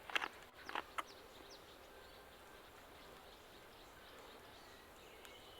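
Quiet outdoor background with a few short chirps or clicks in the first second, then a faint steady hiss.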